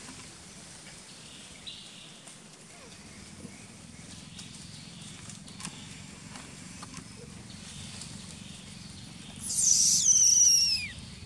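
A baby macaque gives one loud, shrill scream near the end, falling steeply in pitch over about a second and a half.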